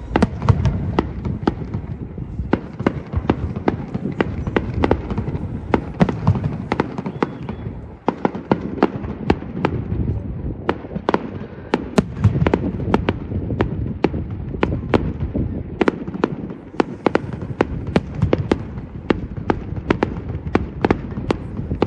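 Fireworks going off: a dense, irregular run of sharp bangs and crackles over a low rumble.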